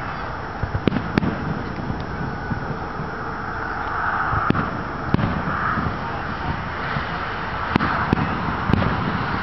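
Aerial firework shells bursting: a string of sharp bangs, two about a second in, two around the middle and a cluster of three near the end, over a steady background rumble.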